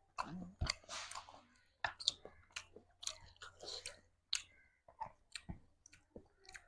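A person chewing food close to the microphone, with wet mouth smacks and clicks coming irregularly, several a second.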